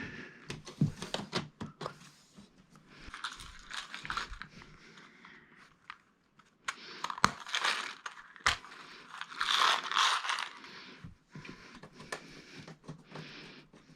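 Plastic TV parts being handled and fitted back together: scattered clicks and knocks with several stretches of crinkling rustle, the loudest about ten seconds in.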